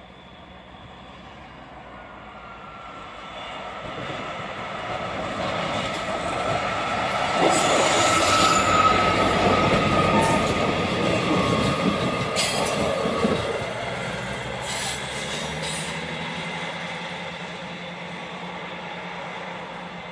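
East Midlands Trains Class 158 diesel multiple unit 158777 passing: its diesel engine and wheels on the rails grow louder as it approaches, with a steady high-pitched whine, peak about halfway through, then fade as it pulls away. A few sharp clacks come as it passes.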